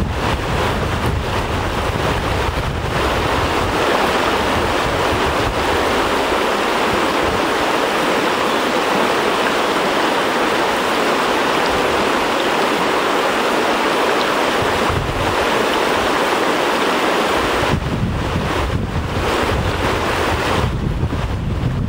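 Fast, shallow river water rushing over riffles, a steady rushing noise. Wind buffets the microphone at the start and again from about seventeen seconds in.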